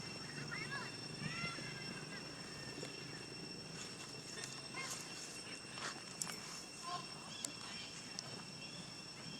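Baby macaque giving a run of short, high squeaks in the first second and a half, then a few scattered clicks, over a steady high drone.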